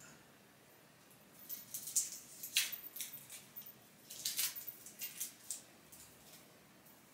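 Light rustling and sharp little clicks, in two bunches about a second and a half in and again about four seconds in, like small objects being handled.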